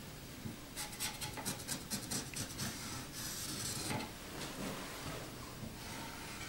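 Marker pen drawn across wooden floorboards to mark a cut line: a run of short scratchy strokes, then a longer hissing stroke, with a few fainter strokes after.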